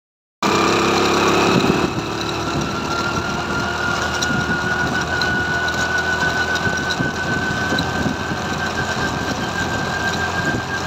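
Motorcycle engine running under way, with a steady whine that rises slowly in pitch. The sound cuts in abruptly about half a second in and is a little louder for the first second and a half.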